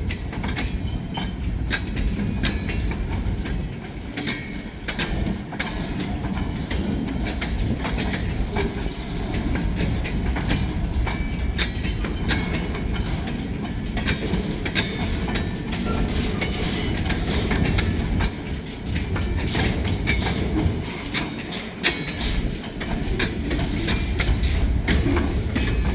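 Freight train cars rolling past: a steady low rumble of steel wheels on the rails, with frequent clicks and clacks as the wheels cross rail joints.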